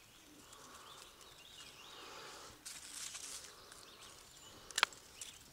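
Quiet handling of a brown trout in a landing net: soft rustling and small clicks, with one sharp click a little under five seconds in.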